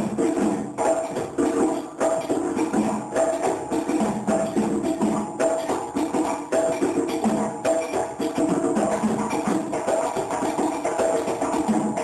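Djembe and dun-dun drums playing a West African rhythm together: a dense run of hand strokes on the djembe over a repeating pitched dun-dun pattern.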